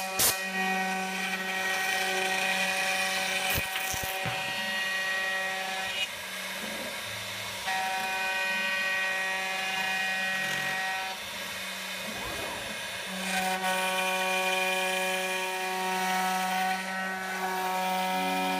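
CNC router spindle with a two-flute up-spiral bit milling 3/4-inch acrylic, a steady buzzing whine whose tone shifts and dips a few times as the cut goes on. A couple of sharp clicks at the very start.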